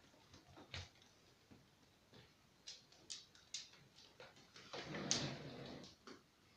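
A dog's claws clicking on a laminate wood floor as it walks: scattered, faint, light ticks. Near the end comes a louder rush of noise lasting about a second.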